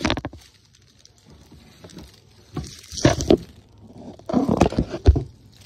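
Plastic bread bag rustling and crinkling in three short bursts, with a dull thump about five seconds in from the phone being knocked while handled.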